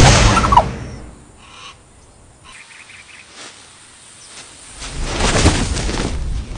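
Harris hawk attack on a ground squirrel: a loud rush with a short falling squeal at the start, then a second loud rush about five seconds in.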